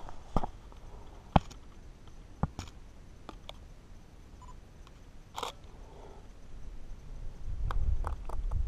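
Scattered sharp clicks and knocks from a Nikon DSLR being handled and its shutter firing, picked up by a body-worn camera, with a small cluster of clicks near the end. A low rumble rises near the end.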